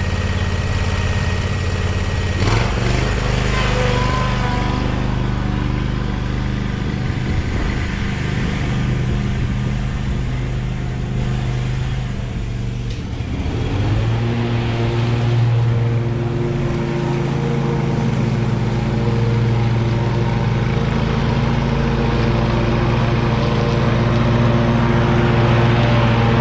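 Exmark Stander stand-on mower's engine running at working speed. Its pitch steps up about two and a half seconds in, sags briefly around twelve to thirteen seconds, then picks up again and holds steady.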